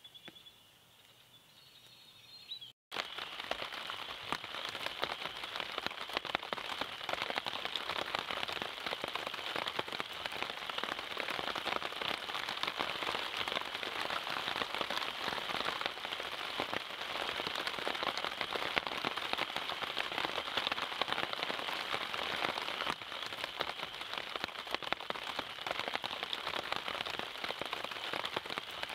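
Steady rain, a dense crackling hiss of drops pattering on leaves and ground, starting abruptly about three seconds in after a much quieter stretch.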